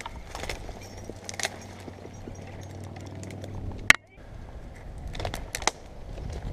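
Tree climber's metal rigging hardware clinking and dead branches rustling and cracking as he moves on his rope. Under it, a steady low hum cuts off suddenly about four seconds in, after a sharp click.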